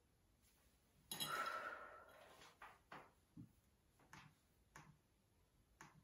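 A brief louder noise about a second in, then slow, scattered keystrokes on a MacBook laptop keyboard: single soft clicks about half a second apart, in a quiet small room.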